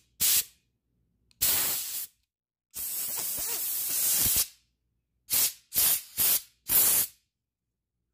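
Compressed-air blow gun blasting in seven separate bursts, cleaning dust and sawdust out of a chainsaw guide bar's oil hole and groove: two short ones at the start, one long blast of about a second and a half in the middle, and four quick blasts near the end.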